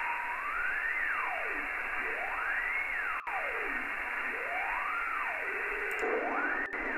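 Filtered audio from an ADAU1701 DSP board running a simple noise filter: a steady hiss with no deep bass or high treble, and a single tone gliding up and down in pitch, rising and falling about four times.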